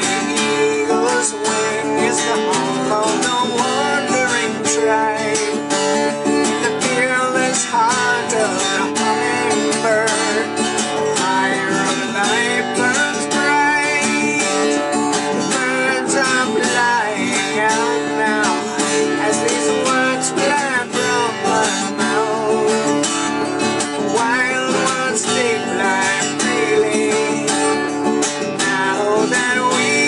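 Steel-string acoustic guitar played solo, strummed and picked in a steady, continuous instrumental passage.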